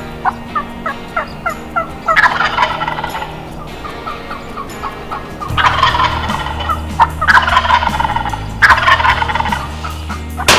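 Wild turkey gobbler gobbling loudly, four gobbles with the last three in quick succession, between short runs of quick yelping call notes.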